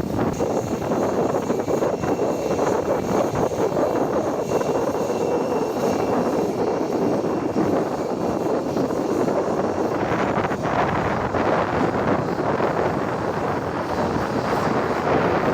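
Jet aircraft engines running steadily, a dense rushing noise with a thin high whine over it. About ten seconds in the whine gives way to more hiss.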